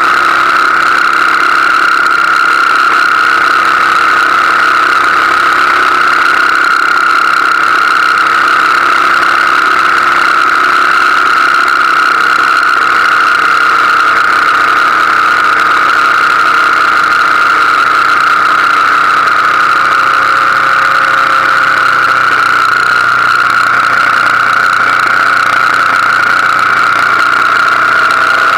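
BMW R1200GS Adventure's boxer-twin motorcycle riding at a steady speed, heard from a camera mounted on the bike: loud, unbroken engine and wind noise with a steady high whine that dips slightly in pitch near the end.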